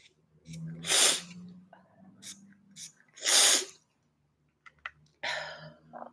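A woman sneezing: two loud sneezes about a second and three and a half seconds in, then a weaker third near the end.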